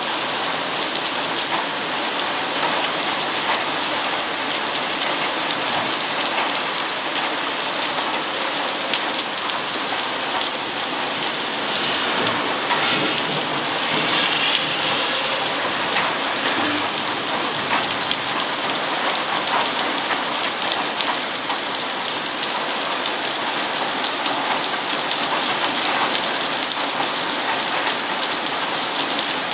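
Heavy thunderstorm rain falling steadily, with scattered sharp ticks of drops striking close by.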